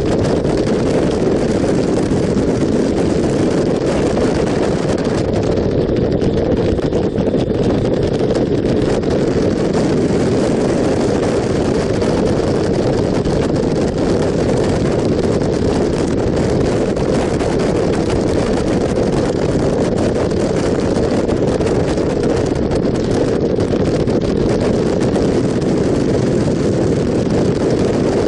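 Steady wind rushing over the microphone of a moving motorcycle, with the bike's engine and tyres running under it at road speed.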